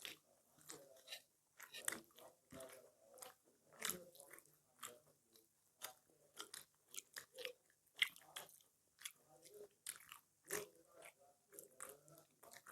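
People chewing and biting food, with frequent irregular crunches, several a second, and soft wet mouth sounds between them.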